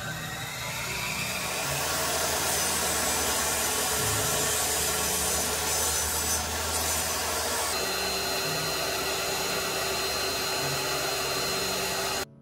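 Small table saw coming up to speed with a rising whine, then running steadily and cutting through wood. It cuts off suddenly near the end.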